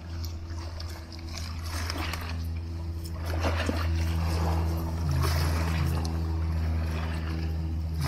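Soft background music with sustained low notes that change in steps, over light splashing and trickling of shallow seawater stirred by a hand holding a small fish.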